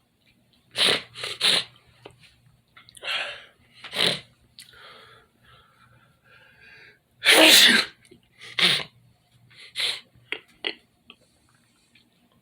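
A person sneezing again and again, a string of sudden sharp bursts with quieter breaths between them; the longest and loudest comes about seven seconds in.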